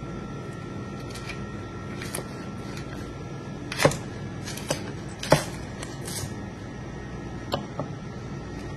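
Kitchen knife slicing a block of fatty tuna belly (otoro) on a cutting board, with a handful of sharp clicks and knocks of blade and fish against the board from about four seconds in, the two loudest about a second and a half apart. A steady low hum runs underneath.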